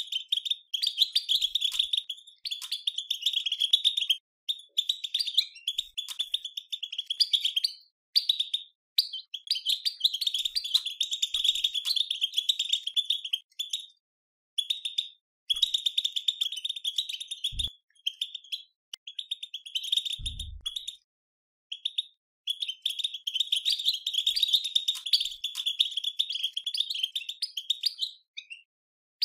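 European goldfinches twittering: fast, high chattering runs of one to three seconds separated by short pauses. This is the 'batbata' twitter used to excite caged goldfinches into song. Two low thumps come about two-thirds of the way through.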